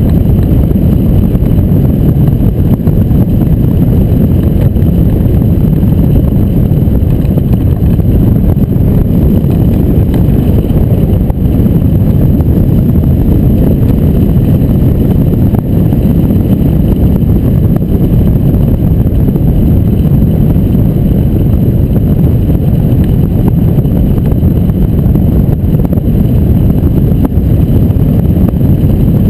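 Wind rushing over a hang glider's keel-mounted camera in flight: a steady, loud low rumble of wind noise on the microphone.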